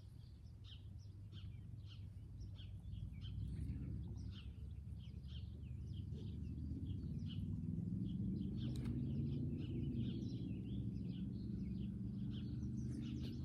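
Small birds chirping over and over at the lakeside, over a low outdoor rumble; a steady low hum rises in level from about halfway, and a single sharp click sounds about two-thirds of the way in.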